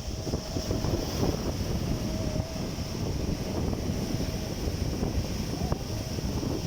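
Sea waves washing onto the shore, with wind buffeting the microphone in a steady rough rumble.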